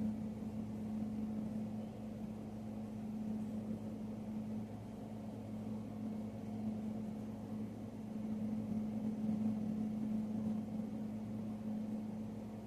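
A steady low mechanical hum with an even, unchanging pitch.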